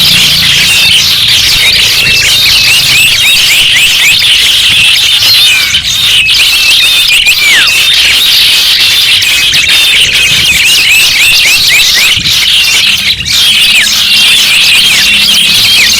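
A dense chorus of many small garden songbirds chirping and twittering over one another in quick, short, often down-slurred notes.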